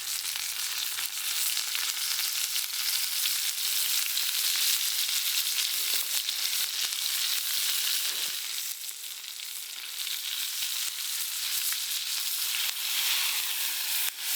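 A cheeseburger patty sizzling as it fries over a campfire: a steady hiss with fine crackling, easing briefly about two-thirds of the way through.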